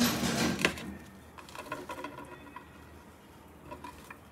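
A table knife cutting through a soft bun filled with omelette on a plate: a louder rustle in the first second, then light scrapes and small clicks as the knife saws through.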